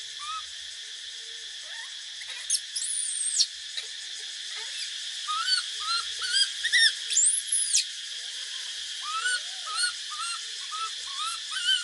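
Short high chirps and squeaks from animals, coming irregularly and busiest in the middle, with two longer arched whistles lasting most of a second. A steady high hiss runs under them.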